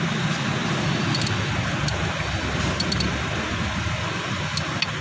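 Steady mechanical hum and hiss of a workshop, with a few faint high metallic clicks scattered through it.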